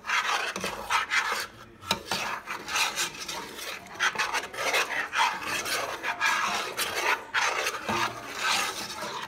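Metal spoon scraping the bottom and sides of a stainless steel pot while stirring a thick, lumpy mix of cornstarch and milk, a rasping scrape on each pass at about two strokes a second.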